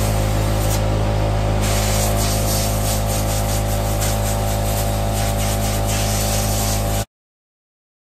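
Compressed-air blow gun hissing as it blows dust out of a pleated engine air filter, briefly easing off about a second in, over a steady low mechanical hum. Everything cuts off abruptly about seven seconds in.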